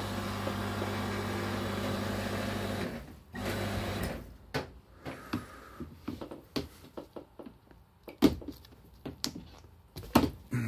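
Membrane (diaphragm) air compressor running with a steady low hum, which cuts off about three seconds in, comes back briefly and stops. Scattered clicks and knocks follow as the air hose and its plastic fitting are handled.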